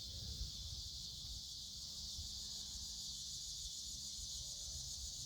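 Faint steady high-pitched insect chorus, with a low rumble underneath.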